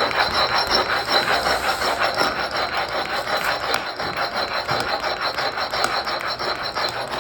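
Trowel scraping over freshly poured concrete in quick, repeated strokes as the patch is smoothed, a steady rasping rhythm.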